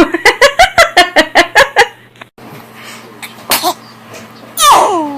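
A quick run of laughter, about five pulses a second for two seconds. After a cut, a baby sneezes near the end: a sharp noisy burst that falls away in pitch.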